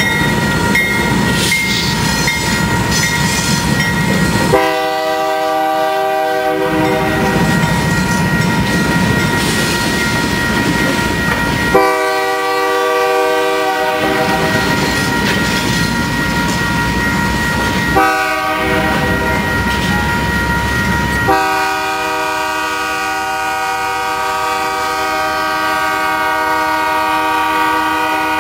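Union Pacific diesel locomotive horn sounding a multi-note chord in the grade-crossing pattern: two long blasts, a short one and a final long one held on. Under it run the rumble and clatter of a passing freight train's cars and a crossing bell ringing steadily.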